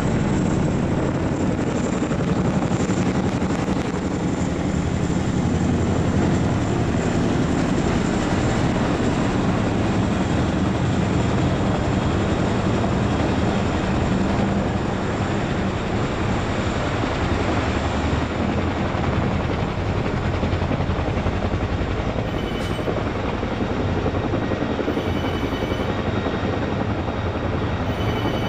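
CH-47 Chinook tandem-rotor helicopter flying in low and descending, its rotors and turbine engines making a loud, steady chopping noise.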